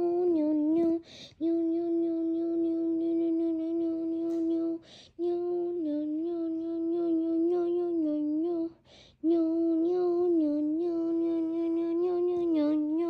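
A high voice humming or droning one held note over and over, each drone lasting about three to four seconds with small dips in pitch, broken by three short breath gaps.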